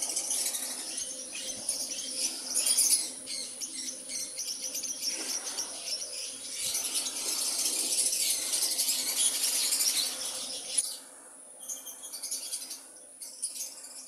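Fischer's lovebirds chattering, many shrill, rapid chirps overlapping at once. The chatter drops away abruptly about eleven seconds in, then returns in sparser bursts.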